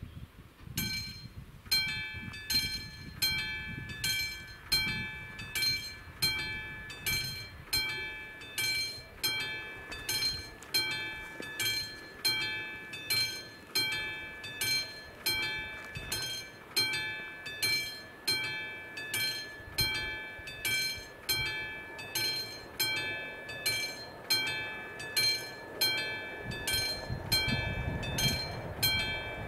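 Electronic warning bell of a Czech AŽD 71 level crossing, starting about a second in and ringing in a steady, even rhythm: a bright ding about every three-quarters of a second. The crossing is activated, warning of an approaching train. A low rumble builds near the end.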